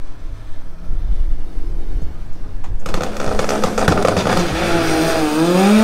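Car engine rumbling low and steady, then about three seconds in a sudden loud blast of engine and exhaust noise whose pitch climbs near the end as it accelerates hard.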